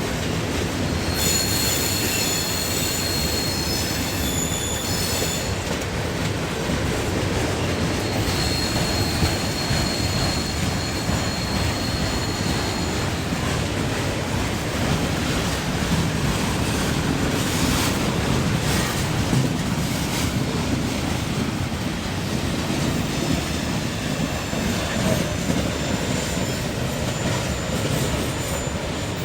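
Norfolk Southern train rolling down the grade around the curve: a continuous rumble of wheels on rail, with high-pitched wheel squeal coming and going. The squeal is strongest about a second in and again from about eight to thirteen seconds in.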